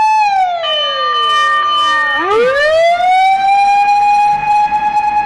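Japanese fire engine siren wailing: the tone slides steadily down for about two seconds, then swoops back up and holds high.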